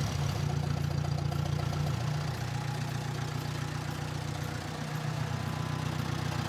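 International Harvester 300 Utility tractor's four-cylinder engine idling steadily.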